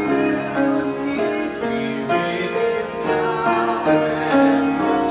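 Music: a slow ballad with piano accompaniment.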